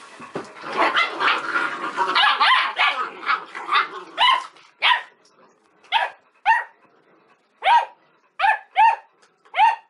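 Magyar Vizsla puppies playing: a tangle of overlapping yaps and growls for the first few seconds, then single short, high barks every half second to a second.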